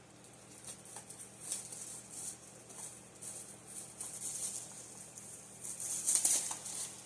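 Plastic packaging crinkling and rustling in irregular bursts as fan parts are handled, loudest about six seconds in.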